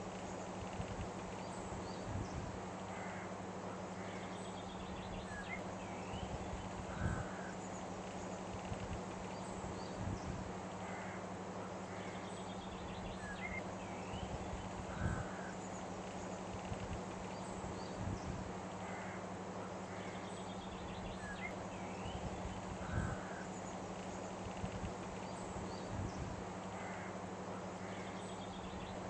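Outdoor nature ambience: scattered bird calls and occasional low knocks over a steady hiss and low hum. The same few seconds of sound repeat about every eight seconds, a loop.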